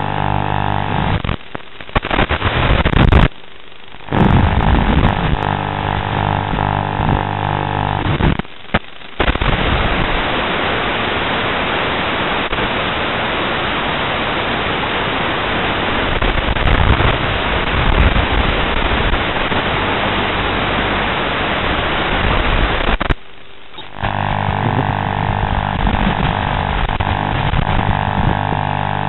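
Static from an analog FPV video link's empty audio channel, recorded with the goggle DVR footage: a steady electrical buzz cut by brief dropouts near the start and about eight seconds in, turning to plain hiss for much of the middle while the video signal is weak and breaking up, then buzz again near the end.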